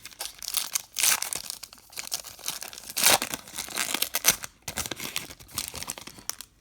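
A trading card pack's wrapper being torn open and crinkled by hand: a run of crackling rips and rustles, loudest about a second in and again around three and four seconds, stopping at the end.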